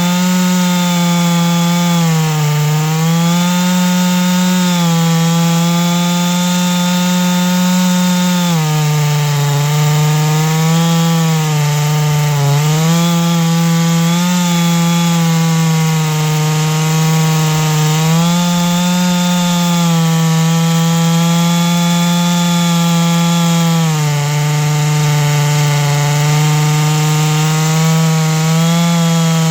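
Chainsaw mill cutting lengthwise through a large black oak log, the saw running steadily at high throttle and self-feeding through the wood. Its engine pitch dips briefly and recovers about five times.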